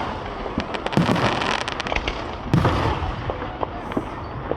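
Aerial fireworks going off: a rapid run of crackling pops about a second in, then a heavy bang with a long rumbling echo about two and a half seconds in.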